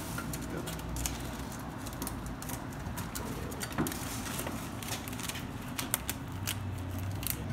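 A plastic candy wrapper crinkling as it is handled, with irregular small clicks and crackles.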